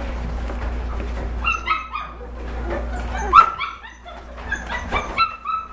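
Young Shepadoodle puppies whimpering and squeaking: a run of short, high-pitched cries starting about a second and a half in.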